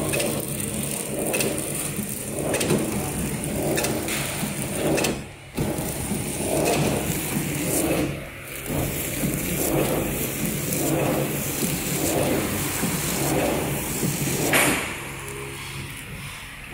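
Mask packaging machine and its conveyor running: a steady hum under a rhythmic pulse of about one stroke a second, with scattered clicks and a sharp clack near the end.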